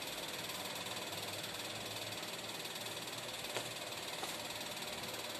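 Steady stovetop hiss while cooking oil heats in a steel wok, with one faint click about three and a half seconds in.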